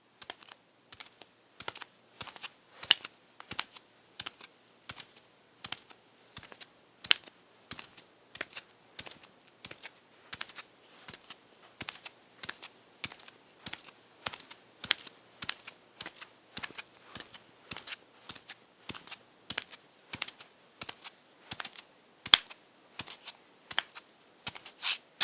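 Bare footsteps walking at a steady pace, about two steps a second, each step a short crisp sound.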